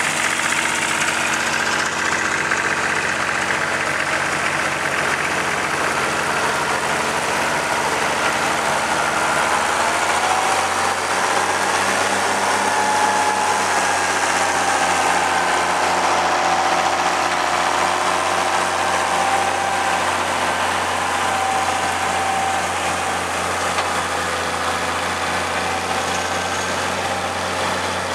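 Tractor engines running steadily under load while pulling mouldboard ploughs through the soil. About ten seconds in, the engine note changes as a different tractor is heard.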